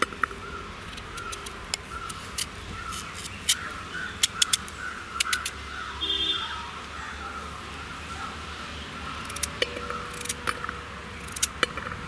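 Knife cutting peeled taro root into small chunks that drop into a stainless steel pot, with scattered sharp clicks and taps. Birds chirp in the background.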